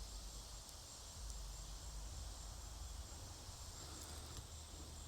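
Faint steady background of insects chirring, with a low rumble underneath.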